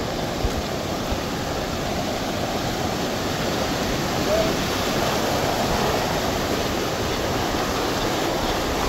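Steady rushing of a river in flood, the water running high and fast.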